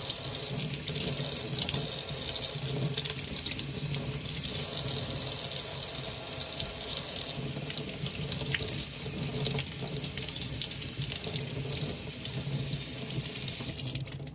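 Kitchen tap running steadily into a sink as salty pickled daikon is rinsed under it, washing off the excess salt.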